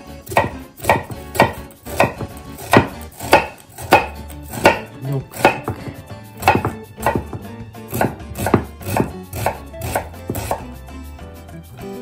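Kitchen knife cutting through a new onion and striking a wooden cutting board: rough dicing at a steady pace of about two cuts a second, thinning out near the end.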